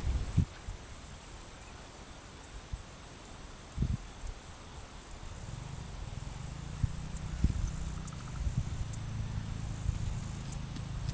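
Insects chirring steadily at a high pitch, with a few scattered low thumps and a low hum that comes in about five seconds in.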